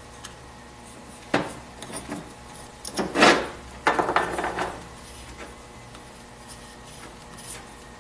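Wrist pin being pushed and twisted by hand through the pin bores of an aluminium piston: a click about a second and a half in, then scraping, rubbing sounds as the snug pin slides in the bore, loudest between about three and four and a half seconds in. The pin is a slightly tight fit in the bore.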